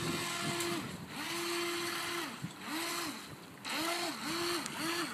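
Small RC speedboat's motor whining, held steady until about a second in, then coming back in five shorter bursts that each rise and fall in pitch as the throttle is pulsed, the bursts getting quicker toward the end.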